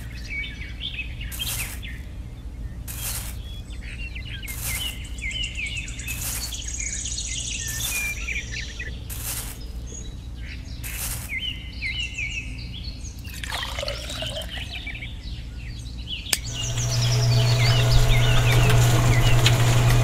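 Sand and cement tipped off a small trowel into a miniature tin-can concrete mixer drum, a short pour about every second and a half, with birds chirping. About sixteen seconds in, the mixer's small electric motor switches on with a click and runs with a steady hum, turning the drum.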